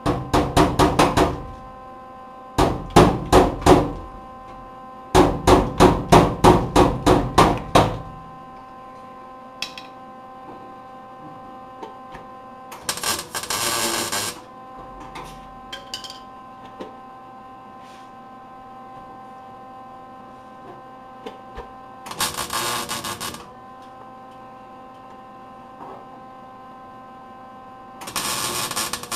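Three quick runs of hammer blows on the steel patch panel in the first eight seconds. After that come three short bursts of welding, each a harsh crackle about a second and a half long, as tack welds are laid on the sheet-steel patch. A steady electrical hum runs underneath.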